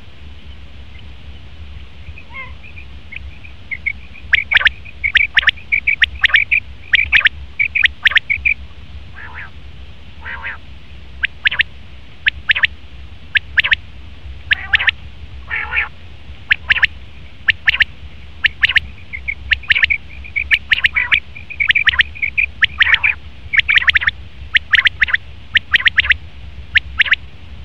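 Male common quail calling: many short, sharp notes in quick runs, starting about two seconds in and going on throughout, over a steady low hum.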